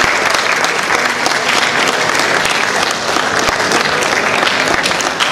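Large audience applauding, a dense and steady mass of clapping.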